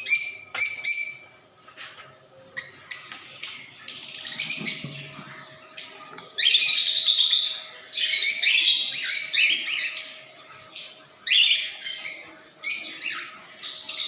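Cockatiels giving repeated harsh, raspy calls, many short ones and a few held for about a second.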